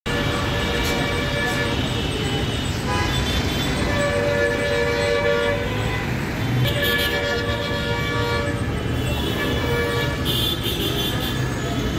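Congested city street traffic: several vehicle horns honking almost without a break, some held as long blasts, over the low rumble of slow-moving buses and motorcycles.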